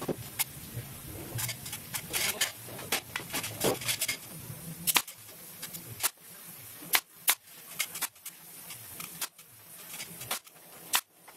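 Pneumatic nail gun firing nails one at a time through scotia moulding into the top of an MDF cabinet: a string of sharp shots at uneven intervals.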